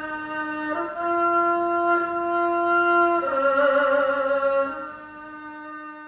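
1920s erhu bowed in a slow melody of long held notes: the pitch steps up about a second in and drops to a lower note with vibrato about three seconds in, and the last note fades toward the end.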